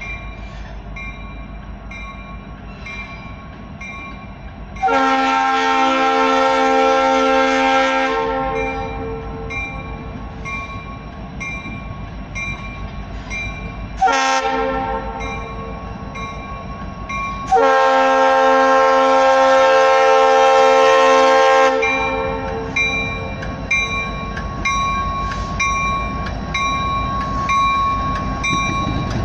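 A Leslie RS-3L three-chime air horn on a Norfolk Southern SD80MAC sounds a long blast, a short one and another long blast as the train approaches a grade crossing. The crossing signal's warning bell rings steadily throughout. Near the end the locomotives pass close with a low diesel rumble.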